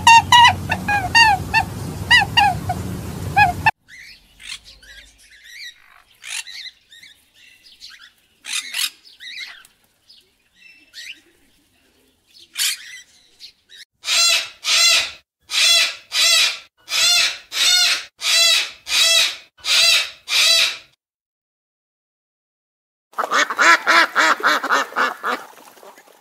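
Bird chirping at the start, then a cockatoo calling loudly about nine times in a steady series about halfway through. Near the end a ruddy shelduck gives a quick run of honking calls.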